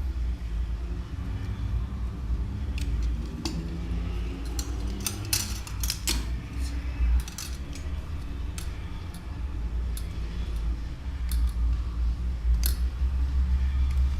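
Small hand tool clicking and scraping against a phone's touch-panel frame while old adhesive is picked off, in scattered short ticks. A steady low rumble runs underneath.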